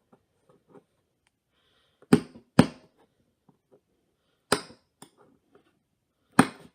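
Four sharp hammer blows on a tool held against the dented corner of an iPad 2's aluminium housing, knocking the dent back out. Two come close together about two seconds in, a third comes a couple of seconds later, and a fourth comes near the end.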